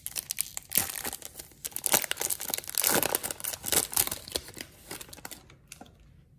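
A Topps Chrome trading-card pack wrapper being torn open and crinkled: a dense run of crackles that thins out and dies away near the end.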